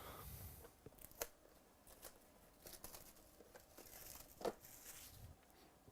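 Faint rustling and crinkling of trading-card packaging and cards being handled, with a few soft ticks, the clearest about a second in and about four and a half seconds in.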